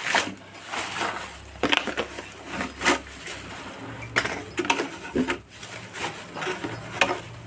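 Thin plastic carrier bags crinkling and rustling as they are handled and pushed into a plastic bottle, in a run of irregular crackles.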